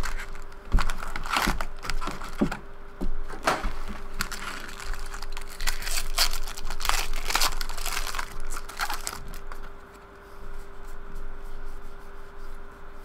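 Foil trading-card pack wrappers crinkling and rustling in irregular bursts as the packs are handled and torn open.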